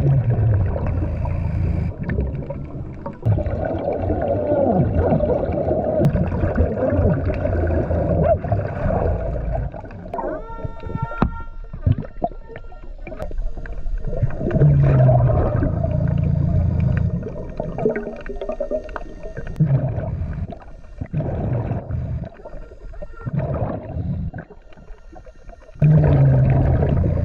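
Scuba diver's breathing heard underwater: regulator breaths and exhaled bubbles gurgling in irregular surges every few seconds. A brief pitched electronic tone sounds about ten seconds in.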